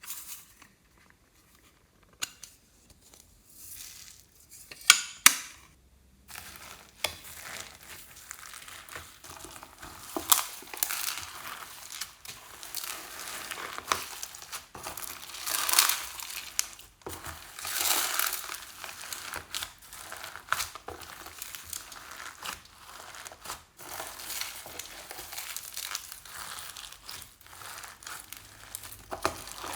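Clear slime being worked by hand, with a crackling, popping sound as it is kneaded and stretched. A few sharp clicks come in the first few seconds before the crackling sets in.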